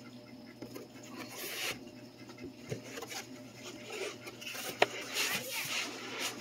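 Packing noise: a prismatic battery cell set down into a cardboard box, then a foam insert rubbing and scraping against the cardboard as it is pushed into place, with one sharp knock about five seconds in.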